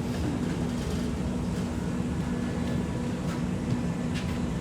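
Steady hum and rumble inside an X'Trapolis 2.0 electric suburban train carriage, with a low steady tone underneath and a few faint ticks.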